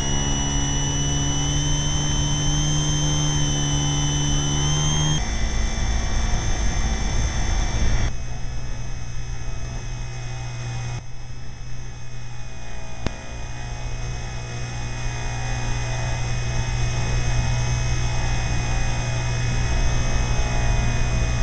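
A radio-controlled aircraft's motors and propellers heard from its onboard camera: a steady drone with a high whine over rushing noise. The pitch and level shift abruptly several times.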